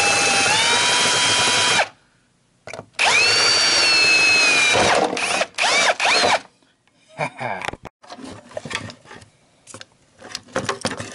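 Power drill with a 1/8-inch bit drilling out rivets in a plastic battery box: two runs of a few seconds each with a high motor whine, the second dropping in pitch as the bit bites. Small metal parts click and rattle as they are handled in the last few seconds.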